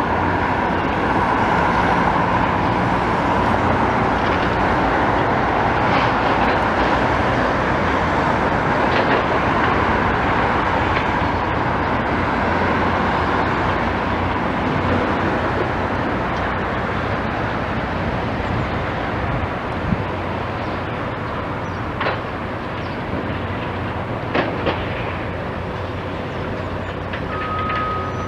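Heavy demolition machinery running steadily with a diesel engine, with a few sharp metal clanks. A reversing alarm starts beeping near the end.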